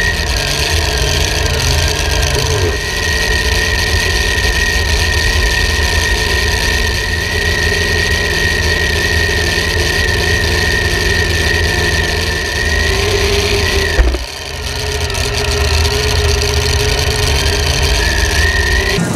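Supercharged V8 engine of a mini unlimited pulling tractor running at idle through open headers, loud and steady, with a steady high tone above it. A brief click and a short dip in level come about fourteen seconds in.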